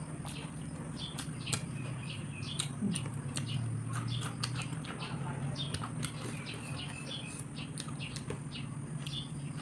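Close-miked eating sounds: chewing and sharp lip smacks, a click every fraction of a second, as rice and grilled chicken are eaten by hand. A steady low hum runs underneath.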